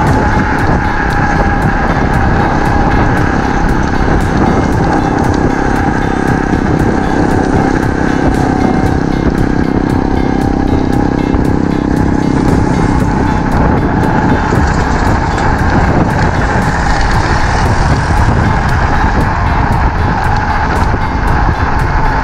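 Wind rushing over the microphone while riding a Raze Taurus XT electric scooter, with a steady whine from its dual hub motors.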